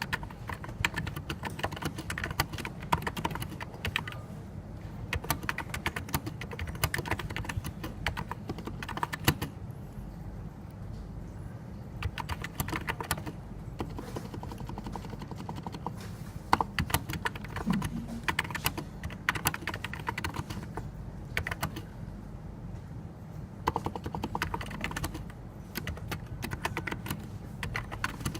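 Typing on a NiZ Plum 84, a Topre-clone electro-capacitive keyboard: rapid runs of key presses in bursts, broken by short pauses, over a steady low hum.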